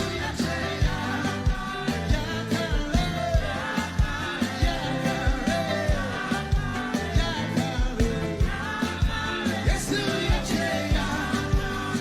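Live worship band music with singing and a steady drum beat.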